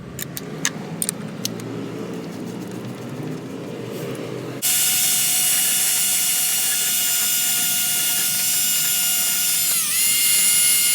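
Clicks and scraping from handling. About four and a half seconds in, an electric drill starts and runs steadily at high speed; near the end its pitch dips briefly under load and recovers. It is being used to clean corroded battery terminals.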